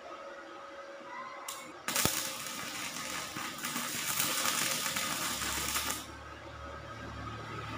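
Stick (MMA) arc welding on 5 mm steel at 40 amps with a small inverter welder: the arc strikes with a sharp crack about two seconds in, then crackles and sizzles steadily for about four seconds. The arc breaks off near six seconds, leaving a low hum.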